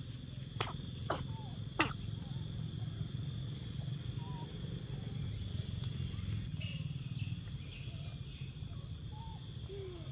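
Outdoor ambience: a steady high insect drone over a low hum, with a few sharp clicks in the first two seconds. Several faint, short rising-and-falling animal calls are scattered through it.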